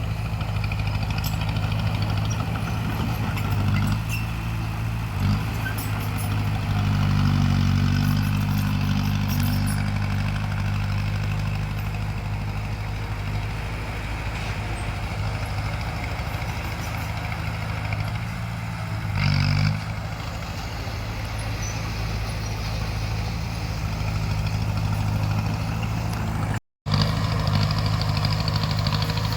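Crawler bulldozer's diesel engine running steadily, working harder for a few seconds about a quarter of the way in, with a brief cut-out in the sound near the end.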